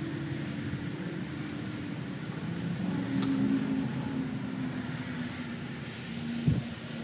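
Light metallic clicks of small motorcycle parts being handled, over a steady low mechanical hum. A short cluster of clicks comes early, a single tick follows, and a sharp knock comes near the end.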